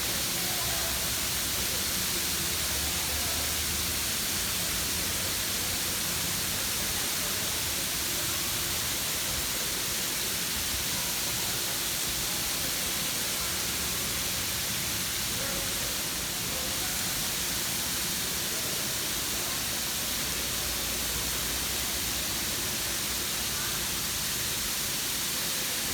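Steady rushing hiss of falling water from a waterfall, unbroken throughout.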